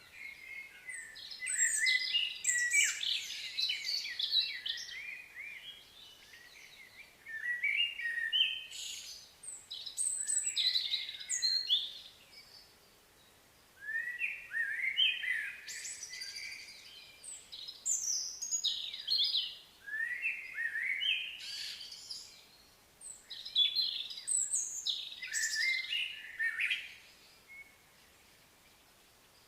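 Songbirds chirping and singing in about five bursts of quick, high notes, with short pauses between them.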